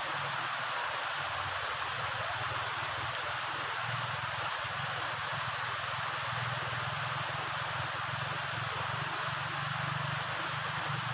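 Heavy rain falling steadily, a dense even hiss with a low, uneven rumble underneath.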